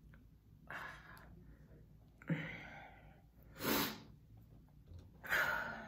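A woman's short, noisy breaths, four of them about a second and a half apart. The third is the sharpest and hissiest.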